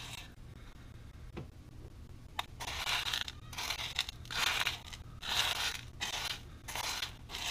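Fingers raking and stirring dry gravelly paydirt in a plastic gold pan: gritty scraping rattles of pebbles, coming in a run of strokes about once a second from about two and a half seconds in, after a few faint clicks.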